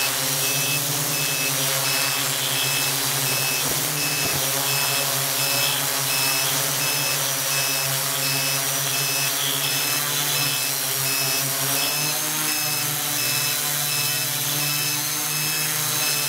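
Multirotor drone's electric motors and propellers humming steadily, the pitch shifting a little about twelve seconds in as the aircraft comes down.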